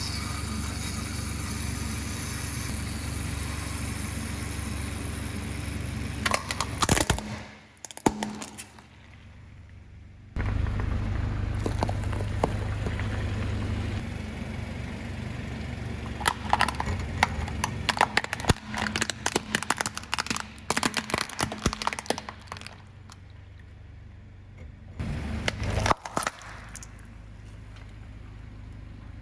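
Car tyre rolling slowly onto plastic candy toys and crushing them, with several bursts of cracking and crunching plastic over the low rumble of the car's idling engine.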